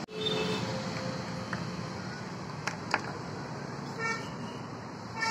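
Busy street ambience: steady traffic noise with a few short vehicle horn toots, the clearest about four seconds in and another near the end, and a couple of sharp clicks between them.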